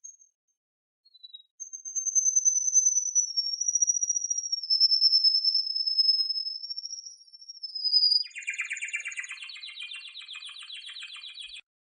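Domestic canary singing: a long, steady, high whistled note that drifts slightly lower over about six seconds, then a fast rapid trill for about three seconds that stops abruptly near the end.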